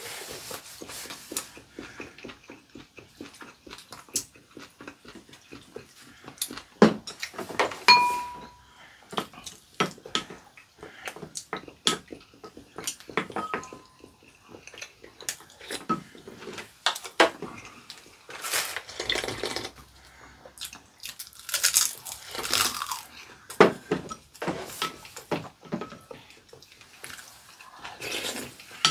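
Metal spoons and chopsticks clicking and clinking against ceramic soup bowls and plates, a couple of clinks ringing briefly, mixed with chewing and slurping of soup.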